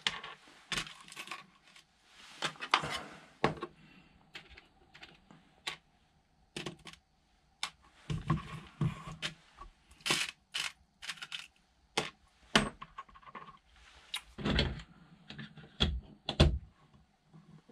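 Scattered clicks and taps of small metal screws and hard plastic parts being picked out of a parts box and handled, with a few duller knocks in the second half as the plastic chassis frame is set down and fitted.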